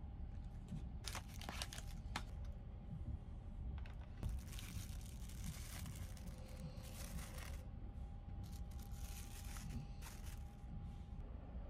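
Clear plastic film crinkling as it is peeled off a boxed sushi meal, in several irregular bursts of crackling, over a steady low rumble.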